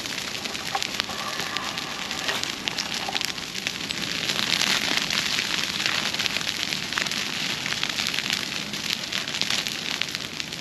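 Dry broomsedge grass burning in a field fire: a steady rushing crackle with many sharp pops, loudest about four to six seconds in.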